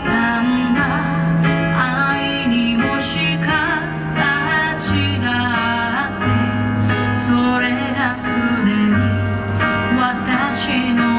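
A song with a sung vocal line over instruments and a steady bass.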